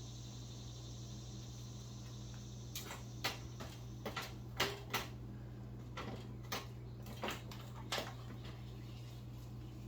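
Scattered metallic clanks and knocks as the 1991 Honda CR250's engine is worked out of its frame, metal bumping on metal, about a dozen between three and eight seconds in. A steady low hum runs underneath.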